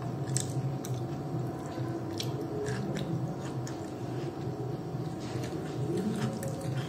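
Close-miked chewing, biting and wet lip smacks of a person eating khichuri, spinach and fried potato with her fingers, heard as irregular short clicks over a steady low hum.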